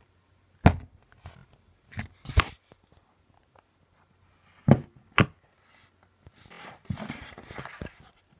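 Handling noises: five separate knocks and thuds of objects being picked up and set down on a hard surface, then a few seconds of softer shuffling and rustling near the end.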